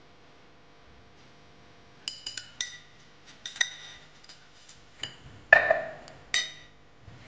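Ice cubes clinking in a clear plastic cup as it is moved and set down: a run of sharp, ringing clinks starting about two seconds in, with a louder rattle about five and a half seconds in.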